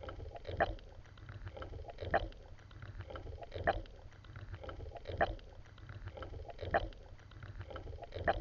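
Swimming strokes heard through an underwater camera: a short water surge repeating evenly about every one and a half seconds over a low steady rumble.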